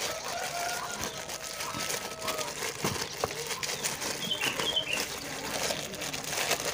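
Thin plastic bags crinkling and rustling in quick irregular crackles as hands squeeze and roll sticky tapioca dough into cilok balls inside them.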